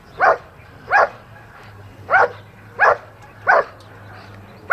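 Dog barking at the protection helper standing in the blind: the hold-and-bark exercise of a protection routine. Five sharp, evenly spaced barks with a longer pause after the second, and another right at the end.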